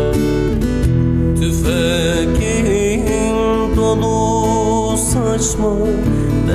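Strummed acoustic guitar accompanying a man singing a long, wavering vocal line of a Turkish folk song.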